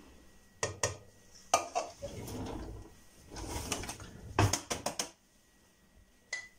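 Kitchen clatter: the last of the water poured from a plastic measuring jug into a glass jar of rye flour, the jug knocked down on the counter, then a metal spoon clinking against the glass jar as it starts to stir the flour and water. A quick cluster of clinks comes about four and a half seconds in.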